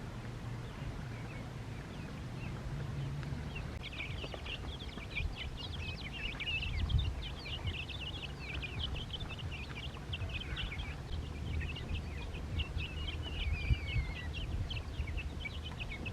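A group of ducklings peeping, many rapid high chirps overlapping, starting about four seconds in and going on steadily over a low background rumble.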